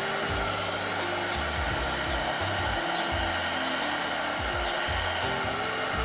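Black+Decker heat gun blowing steadily as it is swept over oxidized plastic to bring back its colour, with background music underneath.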